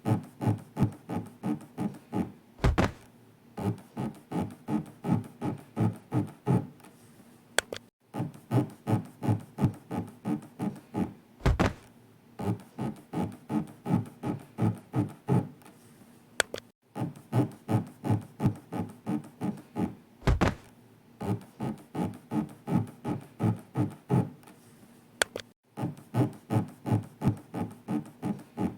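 Looped scraping sound effect: short rubbing strokes, about three a second, in long runs broken by a brief silence roughly every nine seconds. A single low thunk comes three times, about nine seconds apart.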